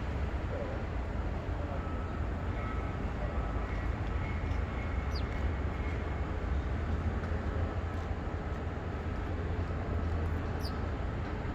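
A steady low rumble throughout, with two short, faint high chirps from house sparrows, about five seconds in and again near the end.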